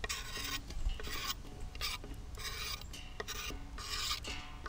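Knife blade scraping chopped spring onions across a wooden cutting board and into a stainless steel bowl, in short rasping strokes about once a second.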